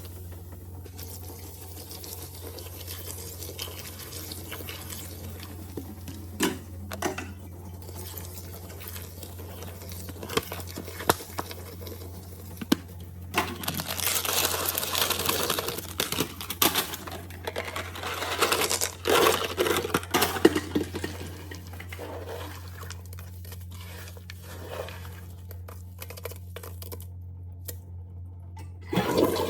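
Water splashing and trickling in two louder stretches, with scattered clicks and knocks over a steady low hum.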